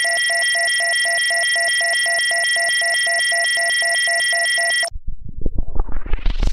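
Synthesized electronic tone effect: several steady high pure tones with a lower beep pulsing about five times a second, cutting off suddenly about five seconds in. It gives way to a different rapidly pulsing electronic sound that begins to rise in pitch.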